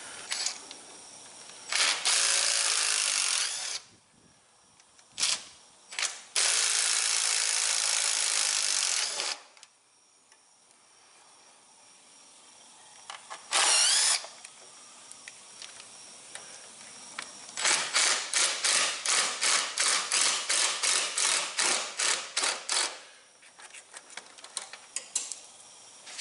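Cordless drill/driver spinning out the screws that hold a Kohler engine's blower shroud, in short bursts of a few seconds or less. Near the end comes a longer stretch of quick pulsing, about three pulses a second.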